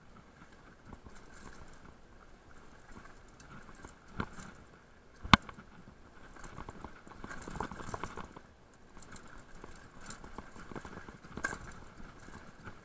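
Mountain bike riding down a rocky trail: tyres crunching over loose stones, with scattered knocks and rattles as the wheels strike rocks, the sharpest knock about five seconds in.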